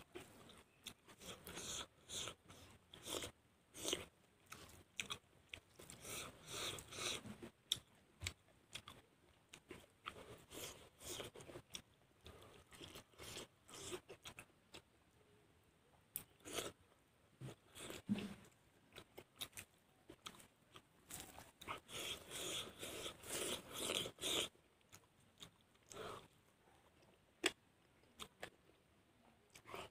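A man chewing and crunching mouthfuls of food, irregular crisp bites and wet mouth clicks picked up close by a clip-on microphone.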